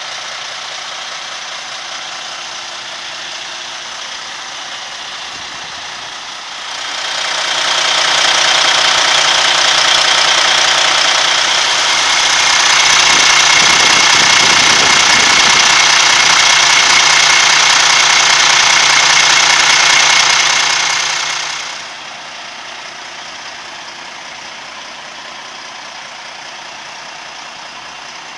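Cummins ISX15 inline-six diesel engine of a Kenworth T880 dump truck idling steadily. From about a quarter of the way in until about three quarters through it is much louder, with a high whine and hiss, heard close up at the open engine bay.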